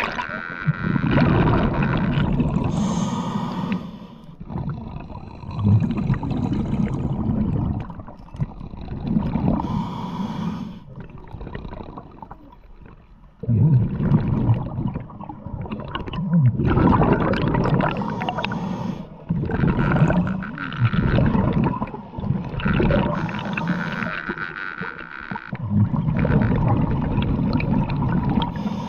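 Muffled underwater water noise picked up by a camera in its housing: rumbling, gurgling surges that come and go every two to three seconds, with a brief lull about halfway through.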